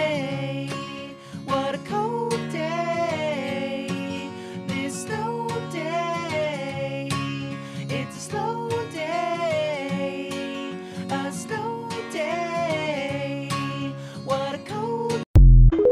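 Background song on acoustic guitar with a repeating melody. It cuts off abruptly near the end, followed by a brief, very loud low thud.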